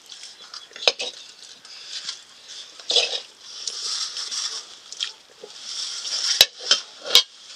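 Metal spoon clinking against a cooking pot and steel plates, with the scraping and scooping of rice on metal plates as people eat with their hands. Three sharp clinks stand out, one about a second in and two close together near the end.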